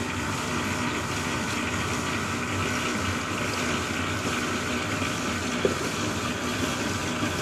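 Ribbon mixer running with a batch of coconut-shell charcoal briquette mix in its trough: a steady, even machine noise with a faint hum. There is one small knock a little past halfway.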